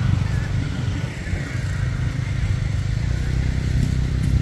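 An engine running steadily, a low drone without rises or falls.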